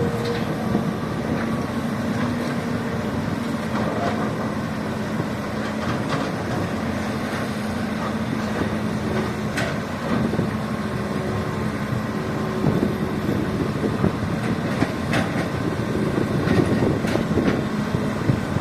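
Radio-controlled metal excavator running: a steady motor hum with scattered clicks and clatters.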